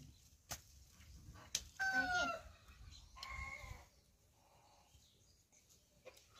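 A chicken calling twice, faintly: a short call that falls in pitch about two seconds in, and a second short call about a second later, with a few sharp clicks before them.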